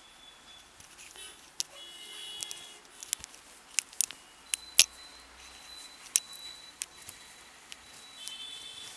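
Hands working a head massage: soft rubbing on hair and scalp broken by about a dozen sharp pats or clicks, the loudest about five seconds in.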